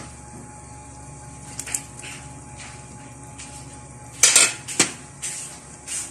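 Dishes and utensils clinking: scattered sharp clinks, the loudest cluster about four seconds in.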